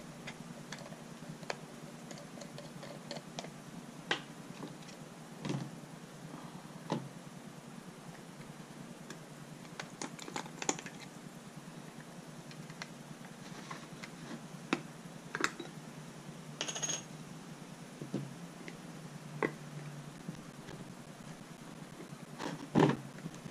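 Scattered small clicks and light metal knocks as a rock tumbler drum is opened: the lock nut unscrewed and the washer and metal cover taken off and set down, then the drum's inner lid worked loose. A louder knock comes near the end.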